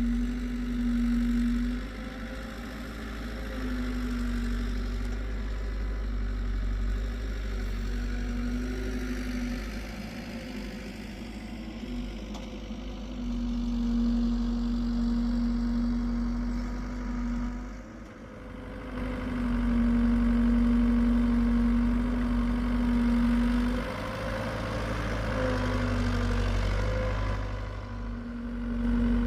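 Hitachi EX75UR excavator's diesel engine running as it works. A steady, humming tone comes and goes about seven times over the engine note, and the sound dips briefly about eighteen seconds in.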